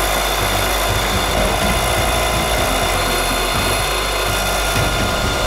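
Milling machine end mill cutting an aluminium motorcycle crankcase, a steady cutting noise with a high spindle whine, as the surface around the bearing bore is machined down to height for a bearing retainer.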